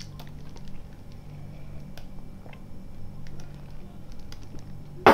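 A steady low hum with faint small clicks while a man drinks from a small glass, then a single sharp knock on the table near the end.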